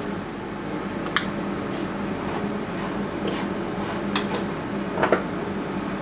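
A few sharp clicks of a steel palette knife striking and scraping the palette while mixing oil paint, over a steady low hum.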